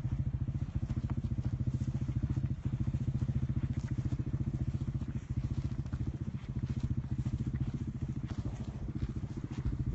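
A low, steady engine-like drone with a fast, even pulse, running throughout.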